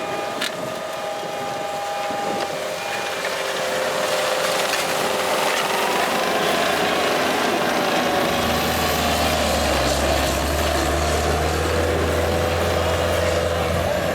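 Skid steer engine running under load while working a field with a Firminator implement, with a wavering whine over it. It grows louder, and a deep hum sets in about eight seconds in.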